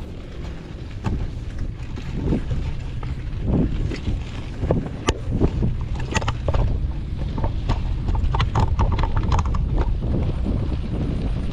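Wind buffeting the microphone of a camera carried on a moving bicycle, a steady low rumble, with irregular clicks and knocks that come thicker in the second half.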